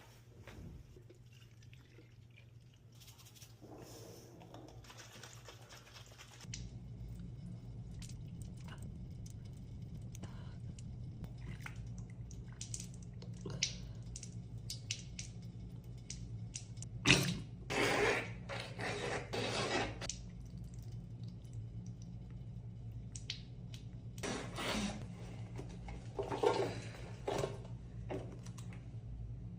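A person sniffling and breathing through the nose on and off during a sneezing fit, the loudest sniffs clustered twice in the second half. A low steady hum comes in about six seconds in and runs underneath.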